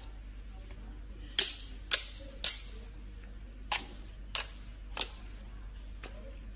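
Slime being pressed and worked, giving sharp popping clicks: seven of them, unevenly spaced.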